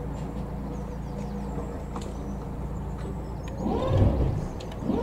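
Boat engine idling with a steady low hum. Loud calls that rise and fall in pitch come in over it about three and a half seconds in and again near the end.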